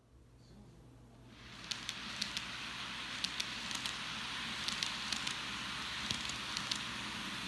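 N-gauge model train running past on its track: a steady rolling hiss that comes up about a second and a half in, with irregular sharp clicks of the wheels over the rail joints.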